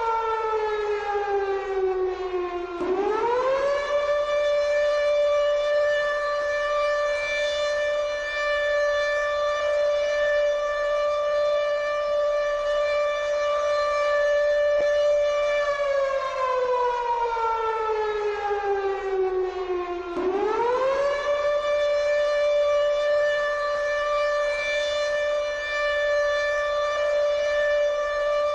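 Civil defence siren sounding a nuclear alarm: a long held wail that twice sinks slowly in pitch, then swoops quickly back up and holds again.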